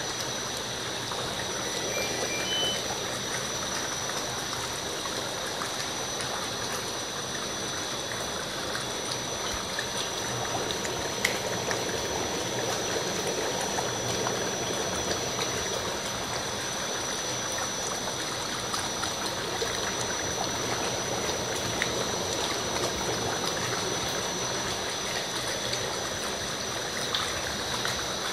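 Ozone hydromassage tub churning and bubbling the bathwater steadily, with a thin, steady high-pitched whine running under it.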